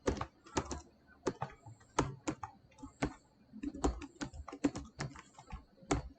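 Typing on a computer keyboard: uneven keystroke clicks, a few a second, in short runs with brief pauses between them.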